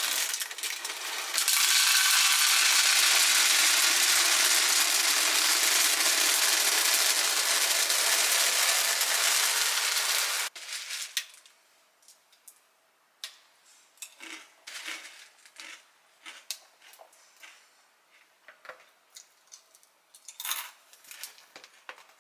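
Small hard, round dry pieces poured from a plastic bag into a tall clear plastic canister, a steady stream that stops abruptly about ten seconds in. Then scattered light clicks and taps as the pieces are handled, with a short clatter near the end as the canister's lid is pressed on.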